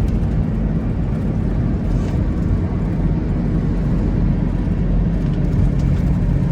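Steady low rumble of engine and road noise heard from inside a moving minibus.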